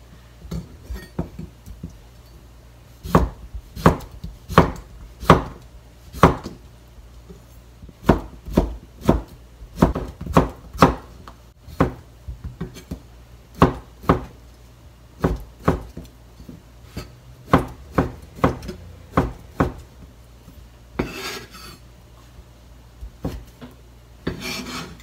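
Kitchen knife slicing a boiled bamboo shoot on a plastic cutting board: a series of sharp taps as the blade goes through and strikes the board, about one or two a second, now and then in quick pairs. Two short scraping sounds come near the end.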